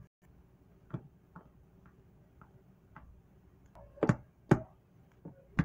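Hard plastic Schleich animal figurines being walked and set down on a surface by hand: a series of light taps and knocks, faint at first, with several louder knocks from about four seconds in.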